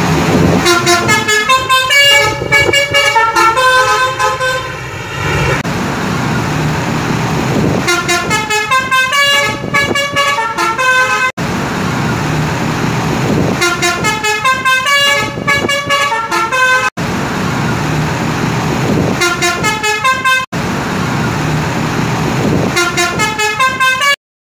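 Basuri 'telolet' multi-tone bus horns playing quick melodic jingles of rapidly stepping notes, about five bursts, each cut off abruptly, over a steady background of bus engine and street noise.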